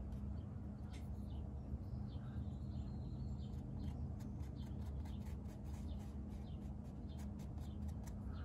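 Faint, irregular soft ticks of a watercolour brush dabbing on paper, over a steady low room hum.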